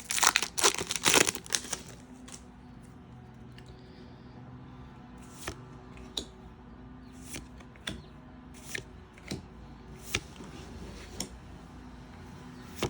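A foil trading-card booster pack torn open with a loud crinkle in the first second or so, then the cards handled and flipped one by one, making sharp little clicks about once a second.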